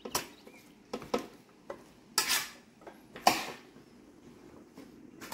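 Spoons and forks clinking and scraping against plates and bowls: a few short sharp clinks, with two longer scrapes about two and three seconds in.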